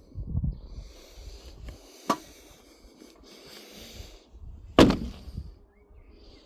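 Two sharp knocks about two and a half seconds apart, the second the louder, over a low rumble.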